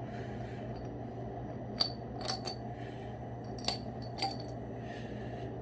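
Pieces of scrap silver dropped gently into a crucible, giving about five light metallic clinks, over a steady low hum.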